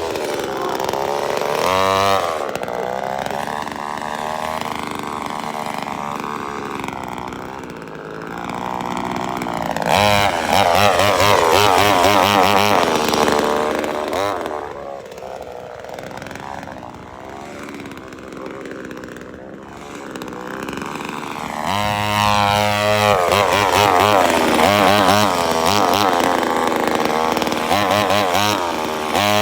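Chainsaw engine running and being revved, its pitch rising and falling. It revs higher and louder about ten seconds in, drops back for a while, then revs up again from about twenty-two seconds.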